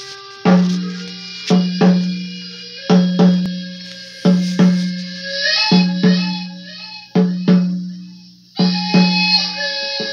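Native American flute playing a slow melody over a hand drum beaten in a heartbeat rhythm: pairs of strokes about every second and a half, each ringing out low.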